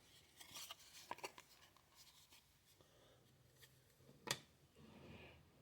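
Faint handling of trading cards: a few light ticks and scrapes of card stock in the first second and a half, one sharper tick about four seconds in, and a little soft rustling near the end.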